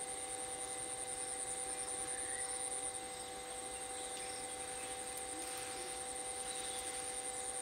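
Steady, high-pitched insect buzz, dipping slightly about three seconds in, over a constant low hum. No elephant calls.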